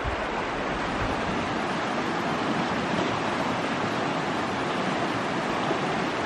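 Shallow stream flowing over rocks, a steady, even rush of water.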